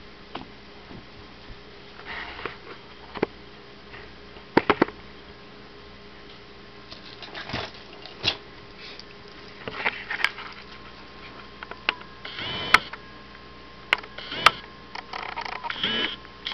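Domestic cat eating from a dish on a hard floor: irregular, wet chewing and smacking noises, with scattered sharp clicks now and then.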